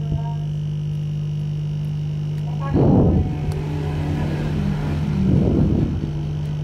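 Steady electrical hum from workbench equipment, with two short louder bursts of scrubbing or rustling noise, about three seconds in and again near five and a half seconds.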